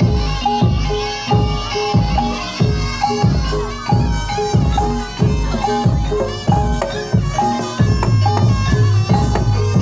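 Javanese barongan gamelan accompaniment. Drums keep a steady beat of about two strong strokes a second, pitched metal percussion repeats short notes, and a reedy wind instrument plays a wavering high melody over them.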